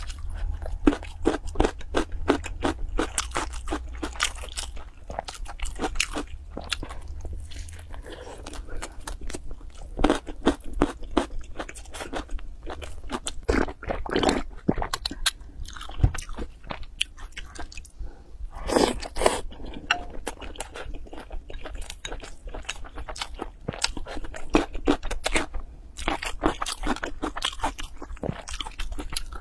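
Close-miked eating: crisp crunching and chewing mouth sounds in quick clicks, with a few longer gulping sips of noodle-soup broth from the bowl about halfway through.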